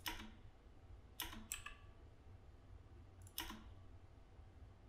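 A few faint, isolated clicks of a computer keyboard, one at the start, two close together just after a second in, and one more past the three-second mark, over a faint steady hum.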